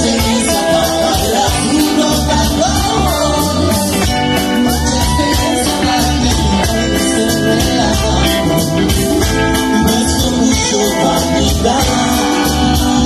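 A live rock band plays: a male lead vocal sings over drums and guitar. The sound is loud and dense throughout.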